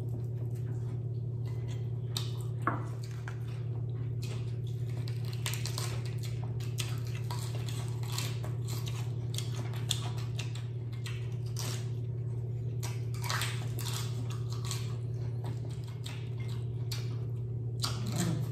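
Close-up crunching and chewing of crispy fried chicken skin and lettuce leaves, many short crackles at irregular intervals, over a steady low hum.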